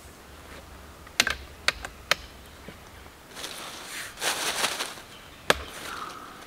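Folding camping table being put together: four sharp clicks as the frame is opened and locked, and a rustle about halfway through as the tabletop is fitted.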